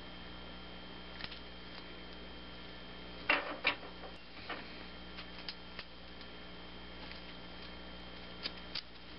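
Scattered light clicks and taps from a hand tubing bender and a steel brake line being worked and handled on a workbench, with two louder clicks about three seconds in and two more near the end, over a steady faint hum.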